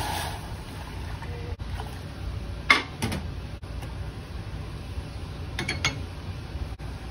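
Water pouring into an aluminium saucepan, then a few sharp clinks of a measuring cup and spoon against the pan, over a steady low hum.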